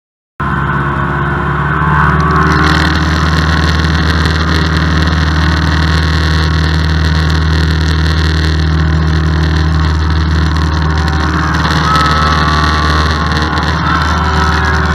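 A Cessna light aircraft's piston engine and propeller drone steadily in cruise, heard loud from inside the cabin. The sound cuts in abruptly about half a second in.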